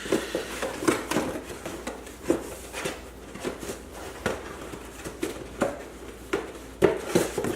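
Meal-kit packaging being handled: a string of irregular light knocks, taps and rustles as items are lifted out and set down, the loudest near the end.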